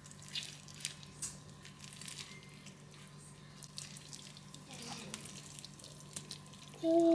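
Spatula scooping baked macaroni and cheese out of a ceramic baking dish: soft sticky squelches and light clicks and scrapes, over a steady low hum. A short low hum-like tone sounds near the end.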